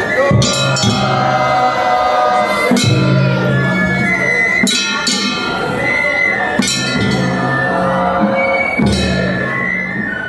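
Shagiri festival music: transverse flutes holding a high melody over big taiko drum strokes every second or two, with a metallic clink of bells or a small gong.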